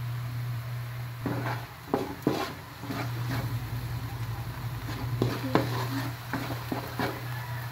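A wooden spatula scrapes and knocks against a metal wok while stirring a frying mixture, in a run of sharp knocks starting about a second in. A steady low hum lies underneath.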